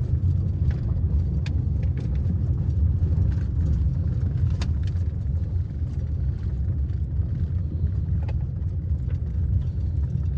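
Car driving, a steady low road rumble heard from inside the cabin, with scattered light clicks and knocks.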